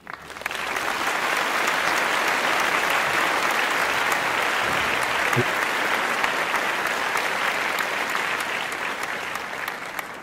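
Applause from a crowd, starting suddenly and dying away near the end.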